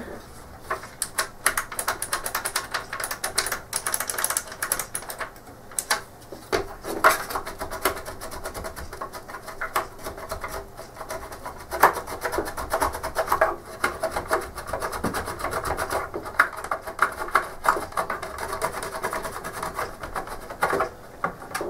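Plastic case of a Philips CM8833 CRT monitor being handled as its front-panel switches are worked into place: irregular scraping, rubbing and clicking of plastic parts.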